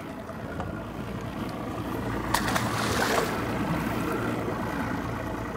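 Water sloshing and splashing against the side of a small boat, with wind on the microphone. There is a sharp knock about two seconds in, then a louder rush of splashing around the three-second mark.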